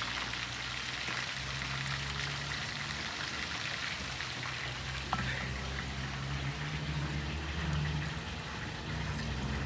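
Mojarra fish frying in hot oil: a steady crackling sizzle, under a low steady hum.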